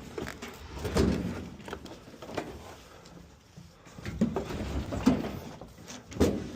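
Scrap metal being shifted and loaded: irregular knocks, clanks and thuds, the loudest about a second in and again from about four seconds in.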